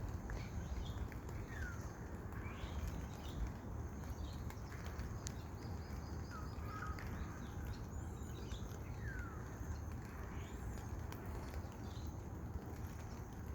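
Birds calling in the rain: a few short calls, each a quick falling note, scattered over steady rain noise with a low rumble underneath.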